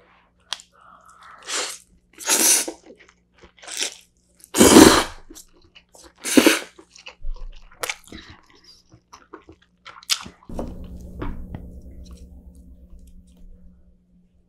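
Close-miked slurping of cold spicy noodles (bibim-naengmyeon), in several short loud slurps over the first half, the loudest about five seconds in, then chewing of the mouthful.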